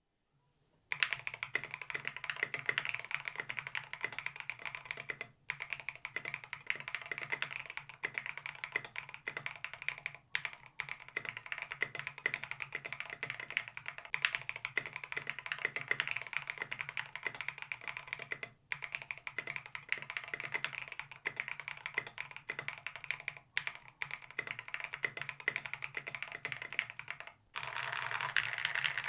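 Mechanical keyboard with Gateron linear switches being typed on quickly and steadily, dense key clacks with a few brief pauses.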